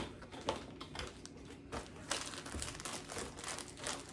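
Plastic and cardboard costume packaging crinkling and rustling as it is handled and opened by hand, in a run of short crackles that gets busier about halfway through.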